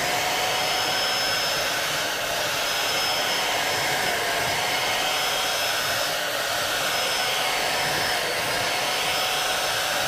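Corded handheld electric paint sprayer running while spraying paint, a steady motor whine whose pitch dips briefly three times.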